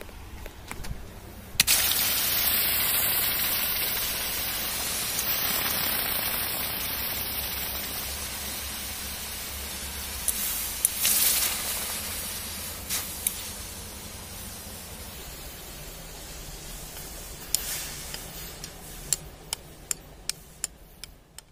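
Red-hot metal ball sizzling on damp soil as the water in the ground boils off. The hiss starts suddenly about a second and a half in, fades slowly over the next dozen seconds with a brief louder surge near the middle, and gives way to a few sharp clicks near the end.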